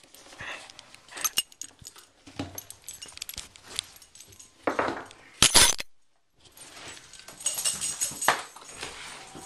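Close handling noise of a handheld camera next to a dog: scattered clicks, rustles and light metallic jingles from the dog's collar. A loud scrape on the microphone comes about five and a half seconds in, and the sound drops out briefly just after.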